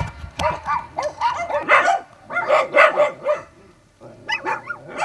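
A pack of dozens of dogs barking and yelping over one another, stirred up by a stranger's arrival, with a brief lull about three and a half seconds in.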